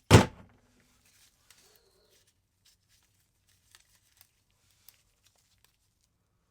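One loud clank as a motorcycle clutch part is set down, ringing briefly. Faint clicks and rustling from the parts being handled follow.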